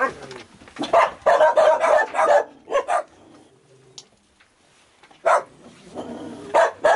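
Several dogs barking in short bursts, a cluster of barks about a second in, a quiet stretch in the middle, then barking again from about five seconds in.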